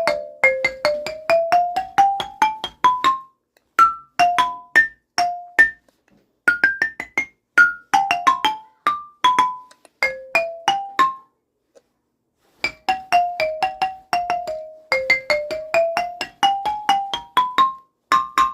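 Mallet percussion instrument played in quick single struck notes, with several fast rising runs and a few brief pauses. The melody hides phone ringtone tunes.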